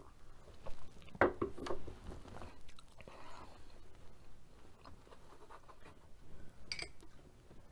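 Close-up eating sounds: a sip from a ceramic coffee mug, then a few knocks about a second in as the mug goes down on the table, followed by soft chewing and scattered small clicks, with one sharp click near the end.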